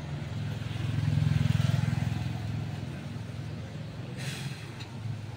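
A motor vehicle passing by, its low engine hum swelling about a second in and then fading away. There is a brief hiss near the end.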